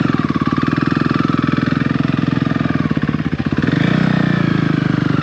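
KTM single-cylinder motorcycle engine running steadily at low revs.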